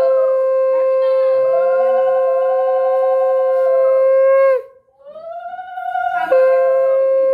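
Conch shells (shankha) blown in long held notes: one steady note, with a second, wavering note sounding alongside. The sound cuts out for a breath about four and a half seconds in. The wavering note swells back first, and the steady note comes back in suddenly a little after six seconds.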